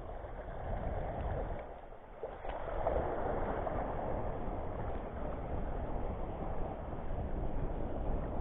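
Shallow seawater lapping and splashing close to the microphone, with wind rumbling on the microphone; the wash grows louder about two and a half seconds in.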